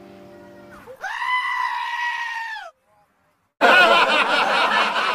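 A fading guitar note, then comedy sound effects: a long, high goat-like bleat that drops in pitch at its end, and after a short silence a louder, wavering bleating cry.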